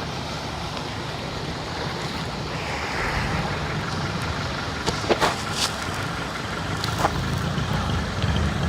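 A motor vehicle's engine running as it pushes through deep floodwater, a steady low rumble over a constant rush of noise, with a few short knocks a little after halfway.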